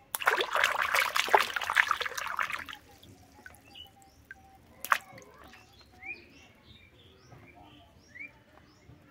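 A plastic toy panda dunked into a basin of muddy water, splashing loudly for about two and a half seconds. A sharp click comes near the middle, then faint bird chirps.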